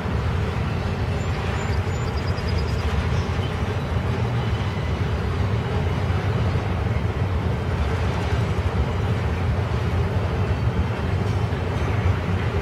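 Double-stack intermodal freight cars of a CSX train rolling past, their wheels giving a steady, low rumble on the rails.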